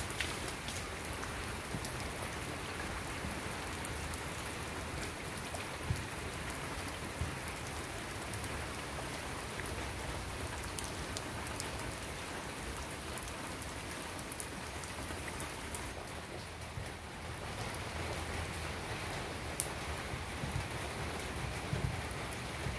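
Steady rain falling on wet ground and foliage, with scattered sharp taps of individual drops.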